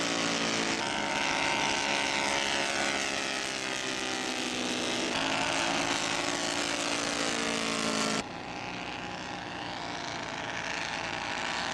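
Engines of radio-controlled scale Fokker D.VII model biplanes running in flight, a steady drone that drifts slowly in pitch. The sound changes abruptly about a second in and about five seconds in, then drops quieter about eight seconds in.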